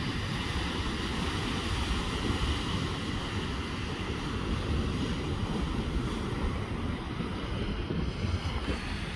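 Wind buffeting the microphone with a steady low rumble, over the continuous wash of small surf breaking on a sandy beach.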